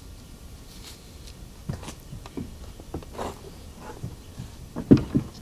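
Handling noises on the top of a console stereo cabinet: papers and loose items being moved about by a gloved hand, with scattered light taps and knocks and a louder thump about five seconds in.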